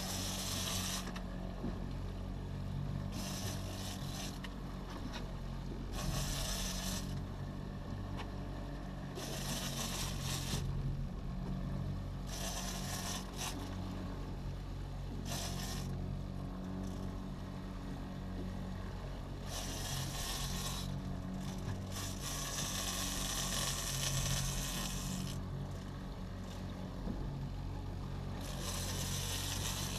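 A small fishing boat's engine running steadily, with bursts of rasping, scraping noise about a second long every few seconds.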